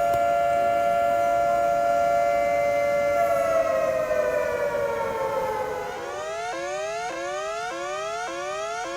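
Emergency warning siren of the kind used in emergency alerts. It holds a steady, loud two-note tone, slides slowly down in pitch from about three seconds in, then switches at about six seconds to quick rising whoops, a little under two a second.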